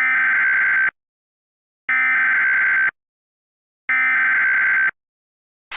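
Emergency Alert System SAME header: three bursts of buzzy two-tone digital data, each about a second long with about a second's gap between. It is the coded header that opens an EAS alert.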